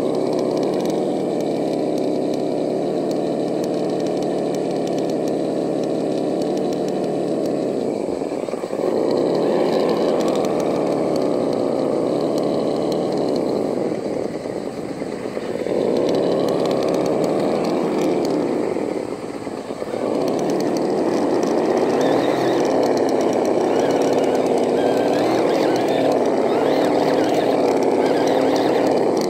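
Vaterra Ascender RC rock crawler's electric motor and geared drivetrain whining as it crawls over rough ground, the pitch wavering with the throttle. The whine eases off briefly three times: about a third of the way in, around the middle, and about two-thirds in.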